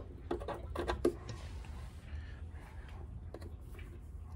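Light metallic clicks and taps from a brake line's flare nut and fitting being worked free of its mount by hand, several in the first second or so and one more near the end, over a faint low hum.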